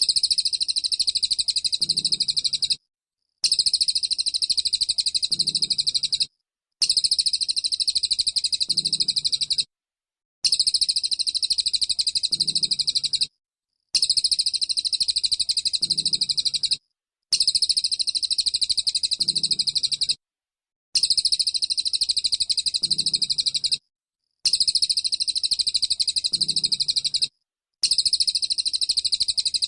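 White-eye (pleci) singing its rapid, high-pitched 'tembakan' shooting trill. Bursts of about three seconds are separated by short silent gaps and repeat nearly identically, as a loop, about every three and a half seconds.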